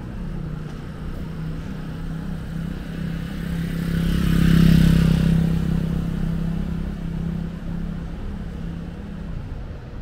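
A small motorcycle's engine running past at low speed: a steady hum that builds to its loudest about halfway through, then fades as the bike moves away.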